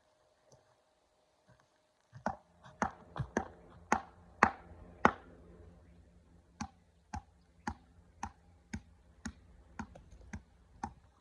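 Hammer striking tree wood in a run of sharp knocks, about two a second. The blows start about two seconds in and pause briefly midway.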